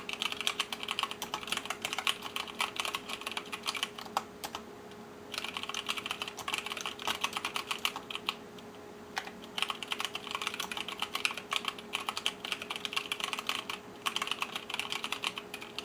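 Typing on an mStone Groove mechanical keyboard with Cherry MX Clear switches fitted with 65 g springs: fast runs of keystroke clicks with short pauses about five, eight and a half and fourteen seconds in. A faint steady hum lies underneath.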